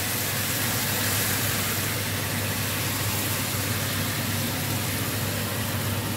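Water poured from a pot into a pan of pork curry, over a steady whooshing noise with a constant low hum that does not change when the pouring stops.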